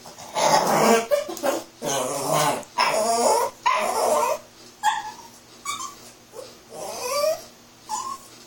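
Chiweenie puppy vocalizing: first a string of rough, grumbling whines each about a second long, then several shorter, higher whining yips that bend up and down in pitch.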